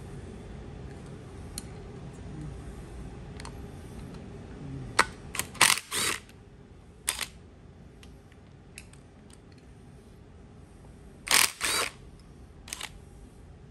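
A cordless drill run in short spurts against the end bolt of a Ford Model A generator: two quick bursts about five to six seconds in, another a second later, and two more near the end, with small clicks and knocks of handling between.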